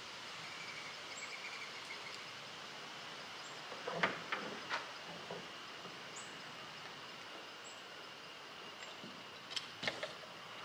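Quiet outdoor background with a steady faint high tone, broken by a few short clicks and knocks as solar cable connectors are handled and plugged into the charge controller, once about four seconds in and twice more near the end.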